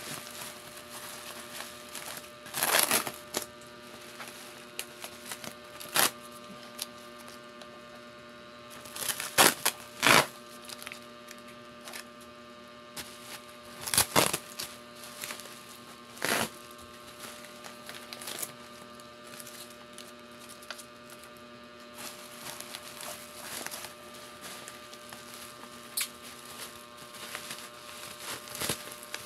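Scattered handling noises, short knocks and rustles, over a steady electrical hum.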